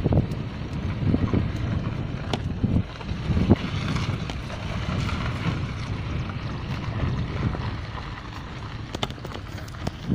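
Wind buffeting the microphone over the low rumble of a slowly moving car, recorded through its open window, with gusty swells in level and a few faint clicks.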